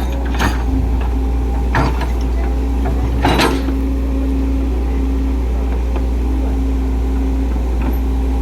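Excavator engine running steadily, with three sharp clanks in the first few seconds.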